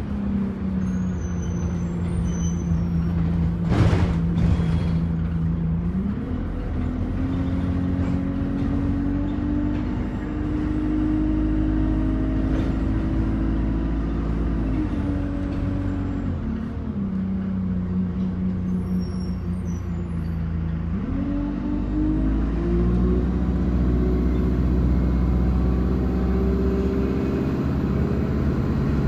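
A bus engine and drivetrain heard from inside the passenger cabin as the bus drives through town. The engine note rises about six seconds in as the bus speeds up, drops back about halfway through, and climbs again later on. There is a single sharp knock about four seconds in.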